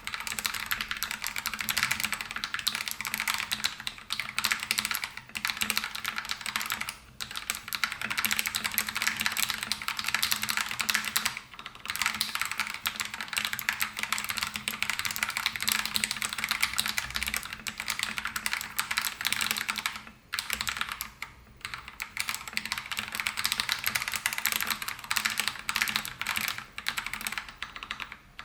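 Continuous typing on an RK G68 mechanical keyboard fitted with Akko CS Lavender Purple tactile switches lubed with Krytox 205g0, PBT XDA keycaps and foam in the case and under the PCB. The keys clatter in quick runs, broken by a few brief pauses.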